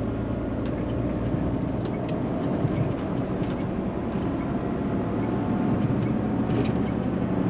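Hino semi-truck tractor's diesel engine and road noise heard inside the cab while cruising at expressway speed: a steady low drone with a few faint ticks.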